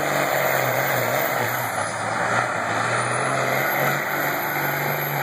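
Modified Chevrolet pickup truck engine running steadily at a truck pull, a low drone with no big rev.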